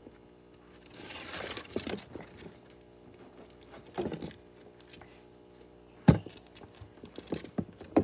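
Rustling and handling noises on a tabletop, then a sharp knock about six seconds in and a few clicks near the end as clear plastic boxes are handled over the guinea pig.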